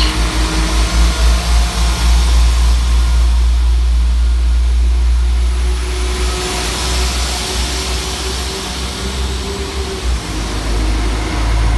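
Two coupled Class 172 Turbostar diesel multiple units departing from the platform. Their underfloor diesel engines run under power with a loud, steady low drone as the carriages move past.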